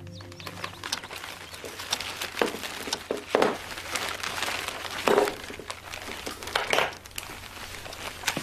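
Rustling, crinkling handling noises with a few irregular louder strokes.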